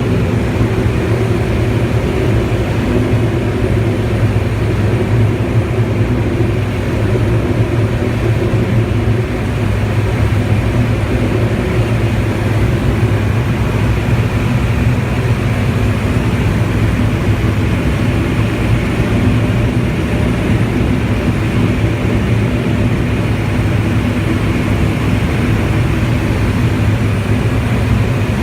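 Turbo Thrush crop-duster's turboprop engine and propeller running steadily, a loud, even drone with no change in pitch.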